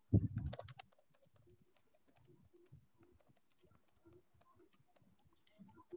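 Typing on a computer keyboard: a louder run of keystrokes in the first second, then quick, faint key taps.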